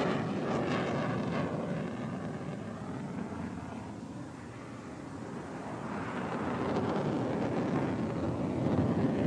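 Jet noise from a Sukhoi Su-27 fighter's twin turbofan engines in flight. The noise fades about four seconds in and builds again toward the end.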